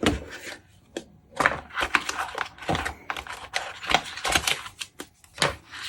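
Irregular clicks, taps and rustling as a gaming mouse and its packaging are handled during unboxing.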